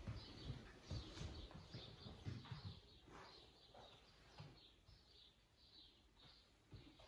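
Faint bird chirping, short high calls repeated about twice a second, with soft low bumps in the first few seconds.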